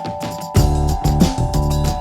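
Background music with a steady beat; about half a second in a deep bass line comes in and the music grows louder and fuller.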